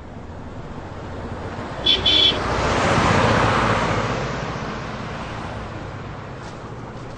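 A small pickup truck passes at speed on a highway: engine and tyre noise swells to a peak about three seconds in, then fades away. A horn gives two short beeps about two seconds in, just before the peak.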